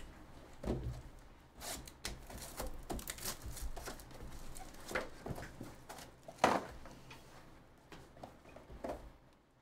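Plastic shrink wrap crinkling and tearing as a sealed hobby box of trading cards is unwrapped, then the box and its card packs are handled, with scattered rustles and a sharper click about six and a half seconds in.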